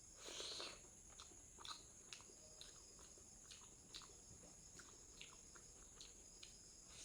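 Close-up mouth sounds of someone eating egg curry and salad: a louder bite or crunch in the first second, then soft wet chewing clicks about twice a second.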